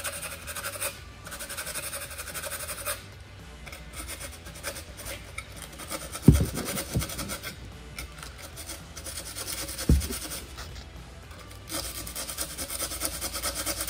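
60-grit sandpaper scratching back and forth inside a carbon-fiber mirror stem in repeated short strokes, roughening the surface so epoxy will bond. Two knocks, about six and ten seconds in, are the loudest sounds.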